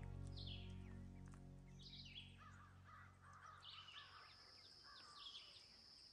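Background music fading out over the first couple of seconds, leaving faint birds calling: a short falling call repeated about every second and a half, some chatter in the middle, and a thin steady high tone from about four seconds in.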